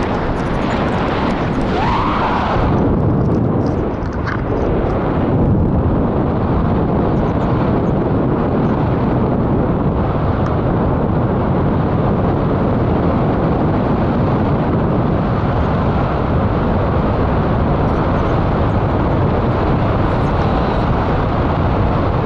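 Steady rush of airflow buffeting a selfie-stick camera's microphone during tandem paraglider flight.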